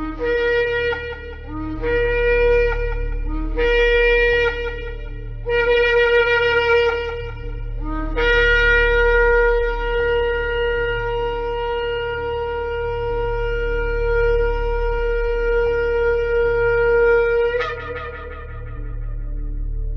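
Shofar blown in four short blasts, each about two seconds, then one long held blast that ends with a sudden upward break in pitch. A steady low hum runs underneath.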